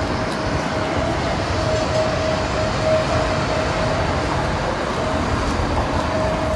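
Steady loud roar of downtown street noise heard while walking, with a faint steady whine running through it.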